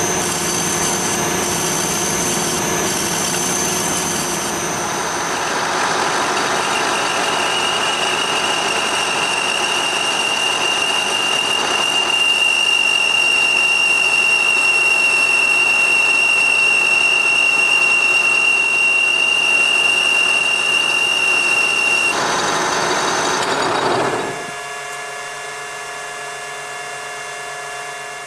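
Metal lathe turning a steel shaft while the cutting tool takes a cut. It runs steadily, with a high-pitched whine joining in after a few seconds. About three-quarters of the way through, the cutting noise drops away and the lathe runs on more quietly, then fades out at the end.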